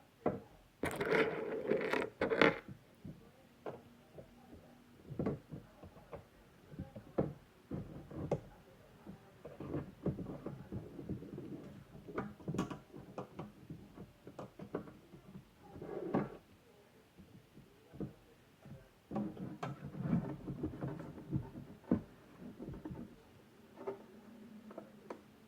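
Irregular clicks, taps and rustles of a box and its packaging being handled, with louder bursts of handling about a second in, around the middle and toward the end.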